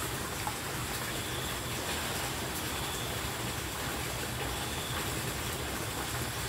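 Steady, even rushing outdoor noise with no distinct events, and a faint tick about half a second in.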